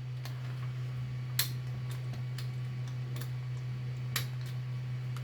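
A few sharp, irregular plastic clicks and taps as the Nerf blaster's dart cylinder and parts are handled and probed, the loudest about a second and a half in and near the end, over a steady low hum.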